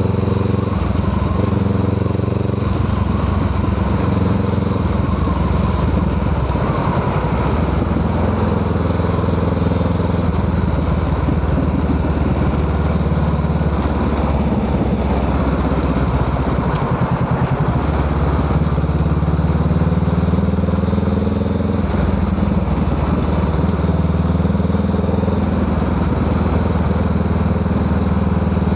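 Honda Rebel 500 parallel-twin engine running through a Musarri aftermarket exhaust muffler, its pitch rising and falling several times as engine speed changes.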